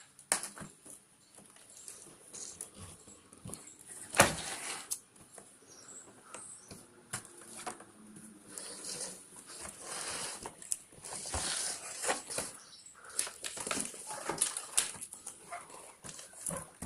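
Packaging being opened and handled by hand: irregular rustling, crinkling and small knocks, with one sharp knock about four seconds in.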